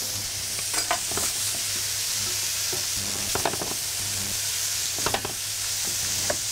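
Diced turnips sizzling steadily in oil in a hot frying pan as they are stirred with a spatula, with a few short knocks about a second in and around the middle.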